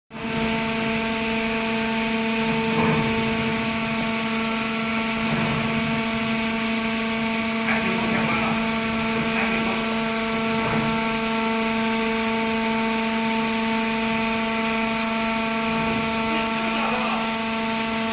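Boxhole raise boring machine running while drilling: a steady, loud hum of constant pitch with several overtones over a hiss, with a few faint scraping sweeps.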